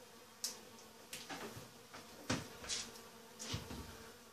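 Bees buzzing steadily, with several knocks and scrapes from a wooden honey frame and knife being handled. The loudest knock comes about two seconds in.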